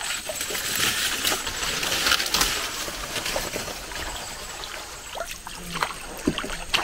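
Water trickling and splashing around a small canoe moving along a stream, with scattered light clicks.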